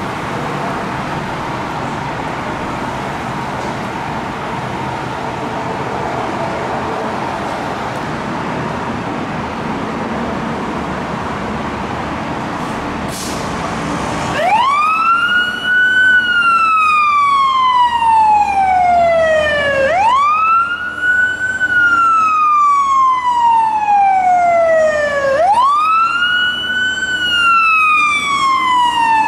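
Steady engine rumble, then about fourteen seconds in a fire engine's siren starts up in a slow wail. Each cycle climbs quickly and falls slowly, repeating about every five and a half seconds.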